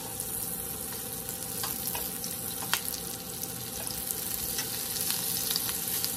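Halved trumpet mushrooms sizzling in butter in a stainless steel sauté pan, with a few sharp clicks of metal tongs against the pan as the pieces are turned.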